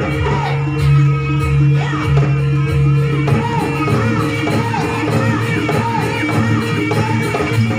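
Loud music with singing, of the kind that accompanies a Javanese kucingan folk dance; a low drone in the mix changes about three seconds in.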